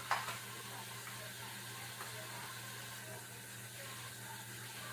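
Kitchen tap running steadily into the sink while bell peppers are rinsed under it, with a short knock near the start.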